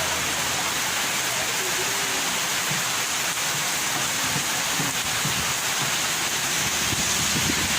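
Heavy rain pouring down in a dense, even hiss that holds steady throughout.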